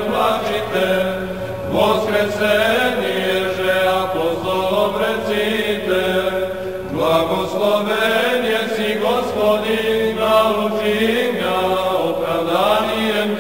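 Orthodox liturgical chant: voices singing long, drawn-out melodic lines over a steady low held note.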